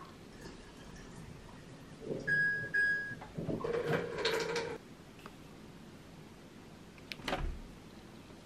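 Dried yellow and black soybeans poured from a mesh sieve into a plastic measuring cup, rattling and clattering for about three seconds. A single short knock follows near the end.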